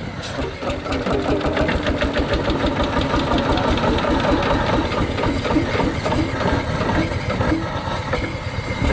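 Single-cylinder hot-bulb semi-diesel engine of an HSCS G-35 Red Star tractor running, with a fast, even knock.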